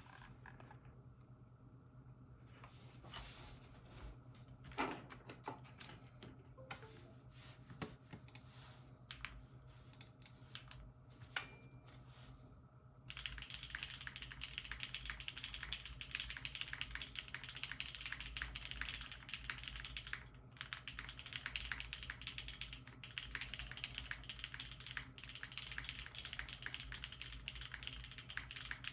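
Mechanical keyboard with Durock POM switches and ABS keycaps: a few scattered single clicks at first, then from about halfway in, continuous fast typing, a dense run of keystrokes with brief pauses.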